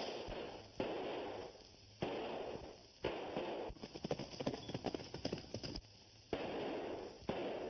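Hissy 1930s film soundtrack that changes abruptly at several edits. About four to six seconds in comes a run of rapid, sharp clatters.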